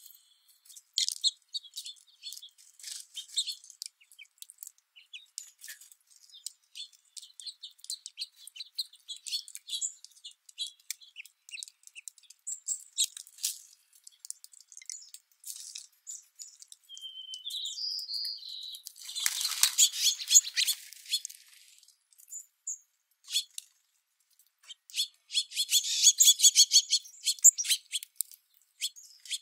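House finches and white-crowned sparrows feeding on a pile of seed, with many quick sharp clicks and taps of beaks picking at the seed. Two or three short high chirps come just past the middle, followed by a rustling flurry of wings, and a dense run of pecking clicks comes near the end.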